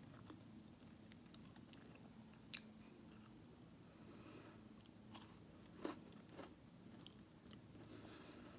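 A person chewing and biting food, faint over a low steady hum, with one sharp click about two and a half seconds in and a couple of softer taps near six seconds.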